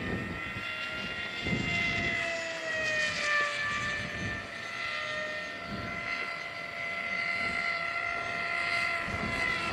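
Electric AXN Floater RC model planes flying: the motor-and-propeller whines hold at several pitches, drifting up and down a little, over gusty wind rumbling on the microphone.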